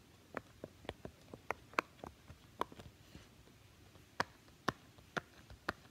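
Blue silicone push-pop bubble fidget being pressed, a string of soft, sharp pops, several a second, with a short pause in the middle. The bubbles are pressed from the side its owner calls the bad side.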